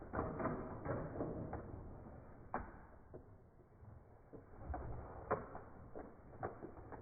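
Handling noise from a Lego set's cardboard box being opened and unpacked: scattered clicks and knocks over some rustling.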